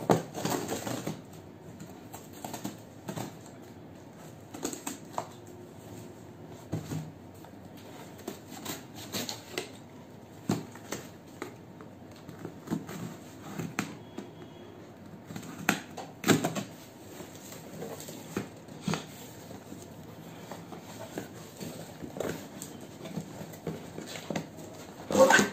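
Utility knife slitting packing tape on a cardboard box, then the cardboard flaps being pulled open and handled: an irregular run of scrapes, taps and rustles with sharper knocks now and then, the loudest near the end.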